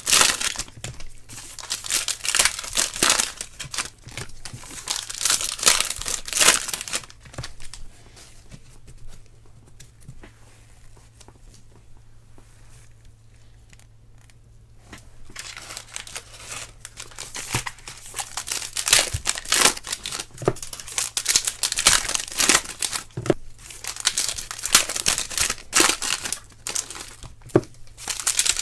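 Foil trading-card pack wrappers being torn open and crinkled by hand, in repeated bursts of crackly rustling, with a quieter stretch of several seconds in the middle.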